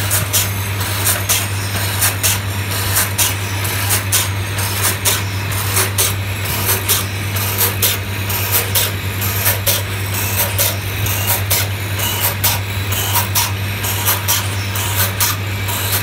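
Small lathe machining brass electric wire-connector parts: a steady motor hum under scraping and sharp clicks, about two or three a second.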